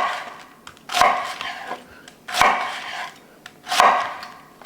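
A kitchen knife shredding cabbage thin on a cutting board. There are four slow slicing strokes, each a sharp crunch that fades away over most of a second.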